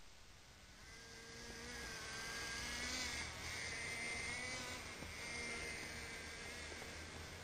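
Nitro RC stadium truck's small two-stroke glow engine buzzing, its pitch rising and falling as the throttle changes; the buzz grows louder over the first few seconds.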